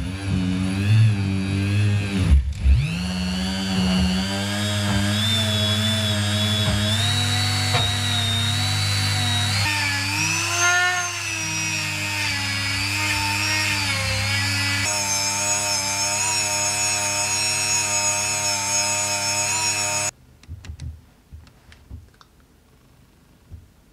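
Rotary tool running with its bit inside a clutch slave cylinder's bore, cleaning rust from it; its whine wavers and shifts in pitch as the cylinder is pressed on and worked around. The tool stops abruptly about 20 seconds in, followed by a few light handling clicks.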